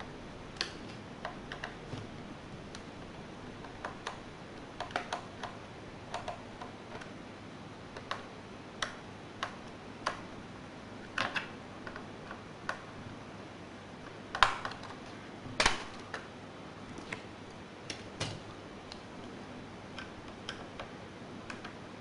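Irregular light clicks and taps of laptop parts being handled during disassembly, over a steady hiss, with two louder knocks a little past the middle.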